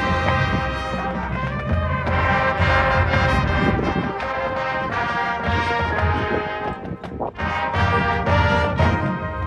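High school marching band playing its field show: brass sustaining loud chords over percussion, with a brief break about seven seconds in before the band comes back in.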